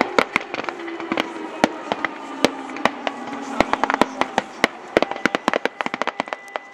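Blank small-arms fire from reenactors' rifles and machine guns: irregular sharp cracks, single shots and short quick runs. Under the shots a faint hum slowly sinks in pitch.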